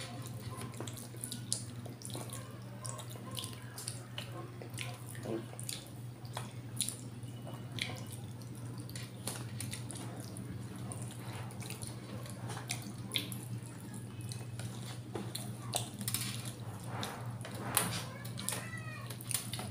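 Close-up eating sounds: chewing and lip smacking, many small wet clicks scattered throughout, over a steady low hum.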